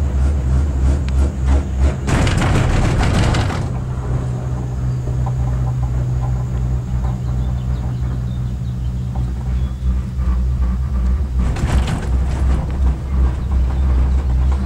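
Steady low hum and rumble inside a moving cable car gondola. Two louder rushing, rattling bursts come about two seconds in and again about eleven and a half seconds in.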